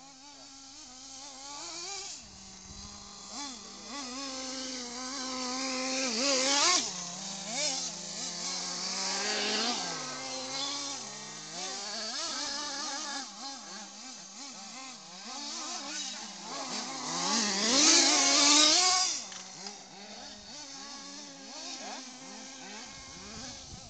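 Several small combustion-engined radio-controlled cars racing, their high-pitched engines rising and falling as they rev, overlapping one another. The engines are loudest when cars pass close, about six seconds in and again around eighteen seconds in.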